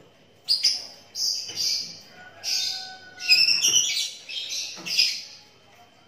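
Lovebirds chattering: several loud bursts of shrill, rapid squeaky calls from about half a second in until just after five seconds.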